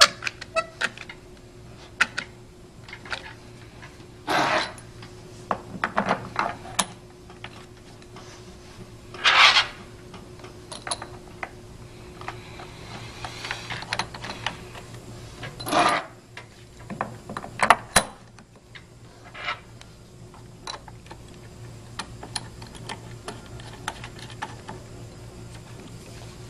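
Scattered clicks and knocks from a one-handed bar clamp being worked and plastic pump housing parts being handled, with a few short, louder rushes of noise. A faint steady hum runs underneath.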